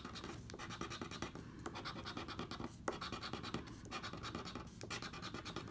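Edge of a poker chip scratching the coating off a paper scratch-off lottery ticket in quick repeated strokes, several a second.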